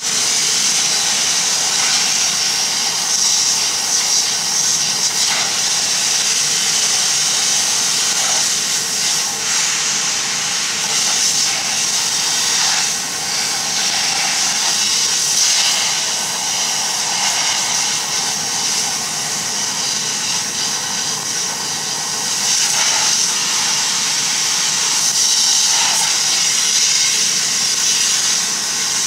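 Steam-cleaner wand blasting steam onto a tractor's greasy engine and chassis to degrease it: a loud, steady hiss of steam with small rises and falls as the jet is moved.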